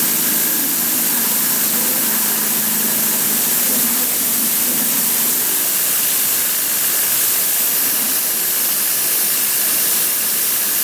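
CNC engraving machine's spindle running steadily with a high hiss as a fine engraving bit cuts slowly into clear plastic. A lower hum beneath it fades out about five seconds in.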